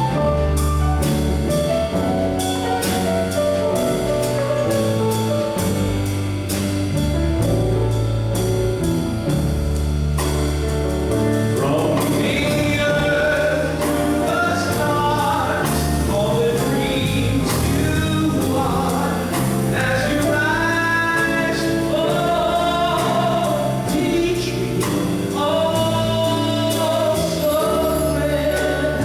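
Band music with bass and drums; singing voices come in about twelve seconds in, holding and bending long notes over the band.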